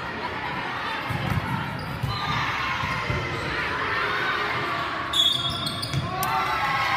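Indoor volleyball rally in a large echoing gym: dull thuds of the ball being played over a steady murmur of spectators' voices. A short shrill whistle sounds about five seconds in, and shouts rise near the end.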